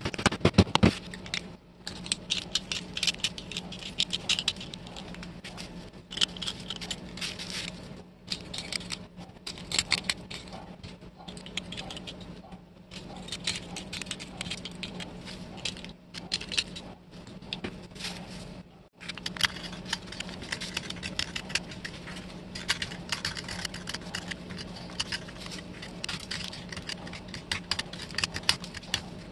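A small craft-knife blade scraping caked grime off an old steel putty knife: a dense run of scratchy scrapes and clicks that breaks off briefly every few seconds and starts again. In the first second, a few sharp taps from a small hammer striking the tool.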